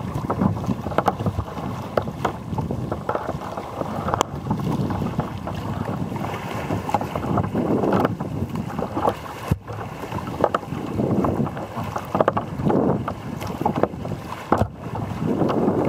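Choppy sea splashing and slapping irregularly against a Valley Anas Acuta sea kayak's hull, with wind buffeting the microphone.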